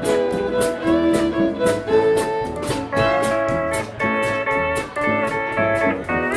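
Western swing band playing an instrumental intro: fiddle, steel guitar, guitar, bass and drums over a steady beat.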